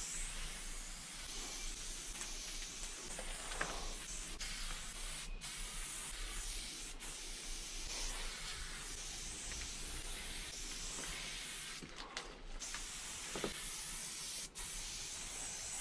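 Aerosol spray paint can hissing as a graffiti tag is sprayed in long strokes, with a few brief breaks between strokes.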